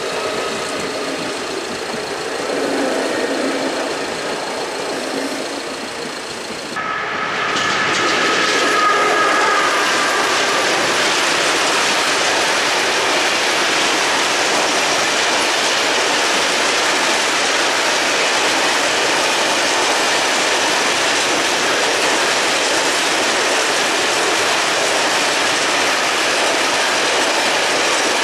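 Train running past a railway level crossing: a steady rush and clatter of wheels on rails. It starts with a sudden jump in loudness about seven seconds in, where two held tones fade away over a few seconds.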